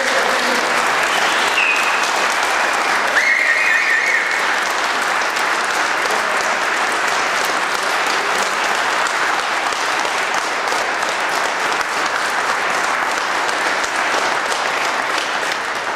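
Audience applauding steadily, a dense run of many hands clapping, with a couple of brief cheers a few seconds in.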